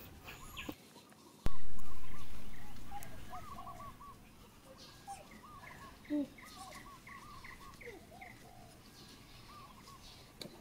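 Small birds chirping in quick repeated strings in the background. About a second and a half in, a sudden loud thump starts abruptly and fades away over a couple of seconds; near the middle a brief lower call slides downward.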